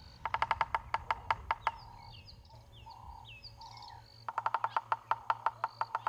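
Bearded woodpecker drumming on a dead tree trunk: two rapid rolls of taps on the wood, each lasting over a second, about nine strikes a second. This is territorial drumming, a claim to territory.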